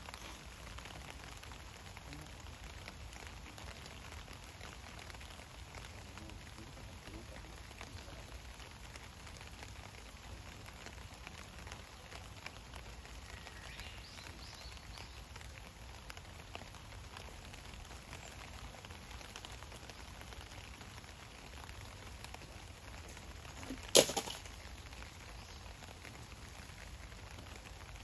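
Steady soft hiss of light rain outdoors. About 24 seconds in comes a single sharp click, the loudest sound here.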